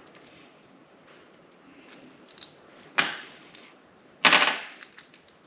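Loose metal hardware (nuts, bolts and washers) clinking in a bolt bin as it is rummaged through for the right nut: two sharp metal clatters, about three seconds in and a louder one a little over a second later, then a few small clicks.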